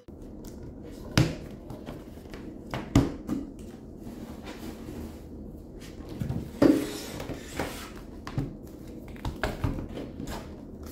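Several light knocks and clicks scattered over a steady low background hum: things being handled, set down or opened and shut.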